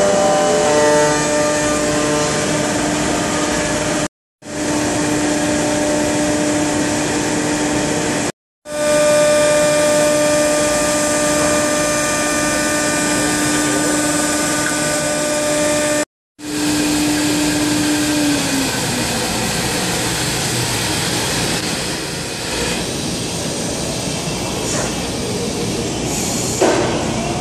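CNC router spindle running with a steady high whine over loud cutting and machine noise. About eighteen seconds in, the whine drops in pitch and fades as the spindle winds down, leaving a steady machine hiss. The sound cuts out briefly three times.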